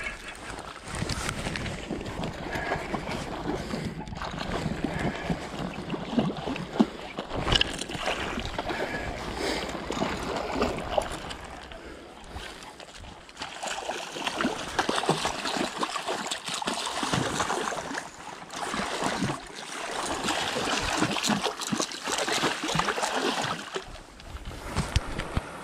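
River water splashing and sloshing in irregular surges, louder in two spells in the second half.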